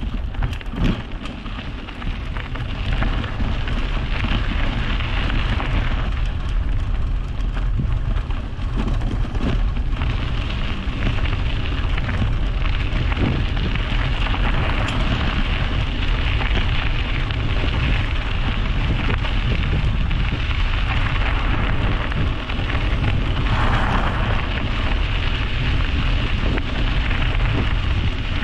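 Steady rush of riding a bicycle on an action camera: wind buffeting the microphone with a deep rumble, and an even hiss of tyres and road noise. A short louder hiss comes about three-quarters of the way through.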